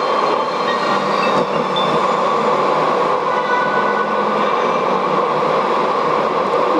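Steady road and tyre noise of a car driving along at speed, heard from inside the car.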